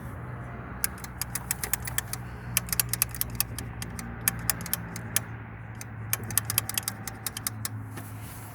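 Mud mower's small engine idling with a steady low hum, with many sharp, irregular metallic clicks and rattles over it. It is not running right, which the owner puts down to the engine being hot.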